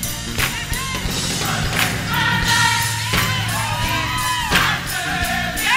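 Gospel choir singing over instrumental backing, with a steady bass line and a sharp regular beat, the voices holding and bending high notes.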